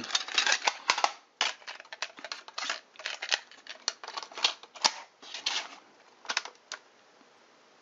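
Plastic clicking and clattering as a cassette tape is handled and loaded into an RCA RP3503 portable cassette recorder, with the cassette door being shut about six seconds in.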